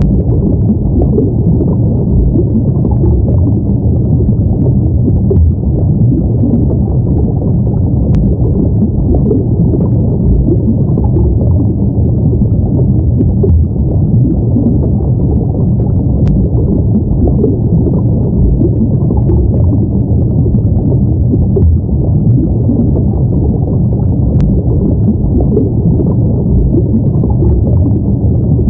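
Underwater ambience: a steady, muffled low rumble, with a faint click about every eight seconds.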